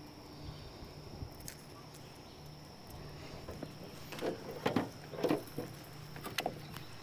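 Faint knocks and taps in an aluminum jon boat with a carpeted floor, clustered between about four and six and a half seconds in, over a low steady hum.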